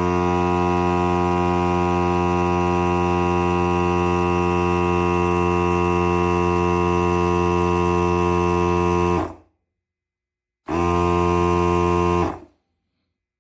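Portable jump-starter's built-in electric air compressor running with a steady hum while inflating a car tire. It shuts off about nine seconds in, runs again briefly for about a second and a half, then stops.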